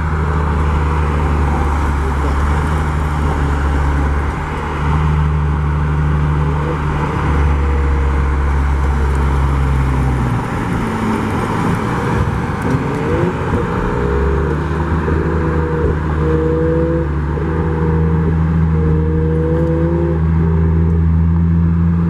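Car engine drone and road noise while driving at steady speed: a steady low hum that lets off for a few seconds about halfway through, then picks up again.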